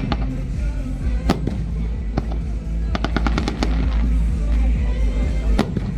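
Fireworks display: scattered sharp bangs and crackles over a continuous deep rumble, with a rapid run of reports about three seconds in.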